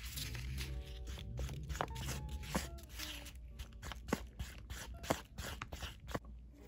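Wooden craft stick stirring thick, sticky lip gloss in a plastic bowl, making irregular wet clicks and scrapes, over soft background music.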